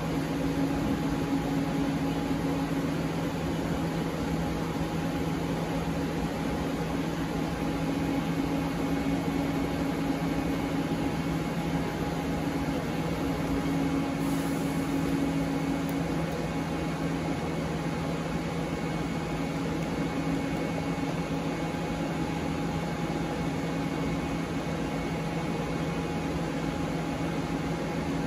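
Mori Seiki ZT 1000Y CNC lathe running idle: a steady machine hum with several constant tones, one of which drops out about halfway through and returns near the end.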